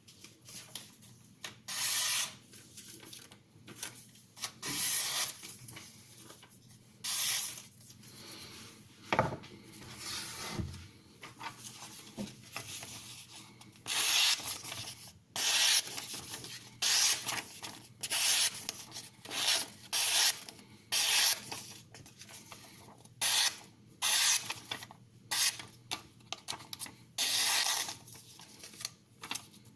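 Repeated rasping strokes of a knife blade's edge, about twenty of them, each lasting up to a second, with short pauses between.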